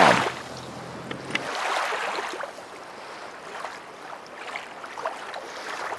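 Water lapping and splashing around a kayak, an even rushing noise that swells about two seconds in.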